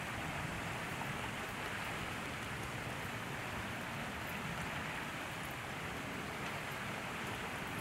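Steady, even hiss of outdoor background noise with no distinct sounds standing out.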